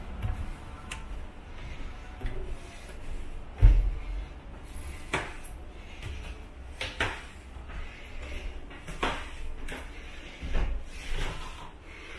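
Footsteps knocking on wooden stair treads, spaced well apart, with one heavier hollow thud about three and a half seconds in, over a low indoor hum.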